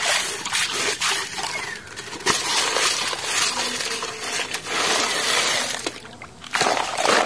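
A hand digging and scraping through wet gravel in a plastic toy dump truck's bed: the small stones crunch and clink against each other and the plastic, with a louder burst near the end.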